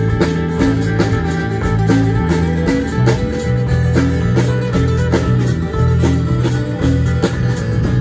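A small live band playing without singing: strummed guitars over bass notes, with a drum kit keeping a steady beat on the cymbals.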